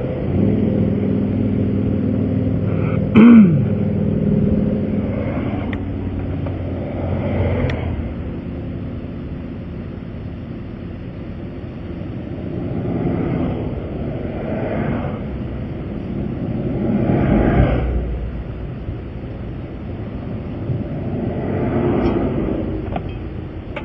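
Vehicles passing on an interstate, their noise swelling and fading several times, over a steady low engine hum. About three seconds in comes a brief loud sound that falls in pitch.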